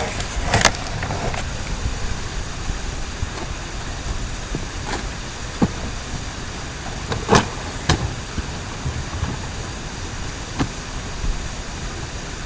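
A few sharp knocks and clunks of hard plastic storage cases being handled and shifted into place, over a steady background of outdoor noise.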